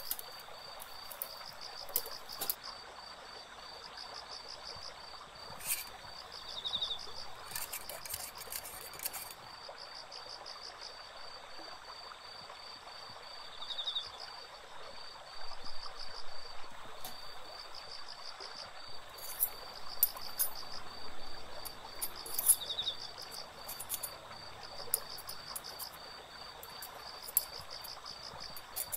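Insects chirping in a steady, rapid high pulse over the even rush of a stream, with a short trill three times, about eight seconds apart.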